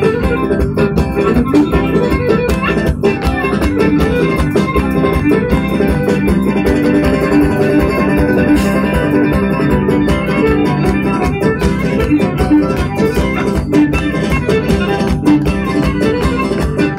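Lively dance music with a fast, steady beat.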